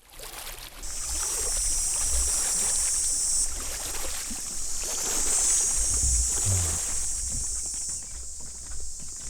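A loud, steady, high insect chorus over a low rumble, the chorus shifting in strength a few times.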